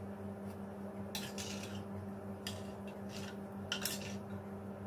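A serving spoon clinking and scraping against the pot and serving dish as mutton curry is ladled out, in scattered short knocks, the loudest about four seconds in. A steady low hum runs underneath.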